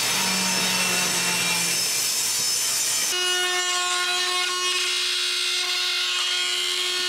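Electric woodworking power tool running: a rough cutting or sanding noise for about three seconds, then an abrupt change to a steady high-pitched motor whine.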